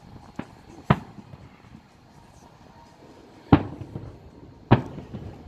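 Aerial firework shells bursting as distant booms: a faint one near the start, a stronger one about a second in, and two loud ones a little over a second apart in the second half, each trailing off in a short echo.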